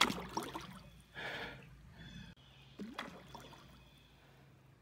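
Creek water splashing and trickling as a released carp goes back into the water, with a splash about a second in. Two short sounds, one at the start and one about three seconds in.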